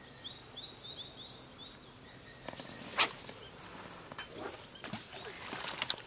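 A small bird's quick run of short, high chirps in the first two seconds over quiet outdoor background noise, followed by a couple of sharp clicks, one about three seconds in and one near the end.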